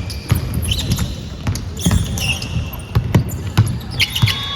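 Basketball bouncing on an indoor court amid game play, repeated thuds of the ball, with short high sneaker squeaks.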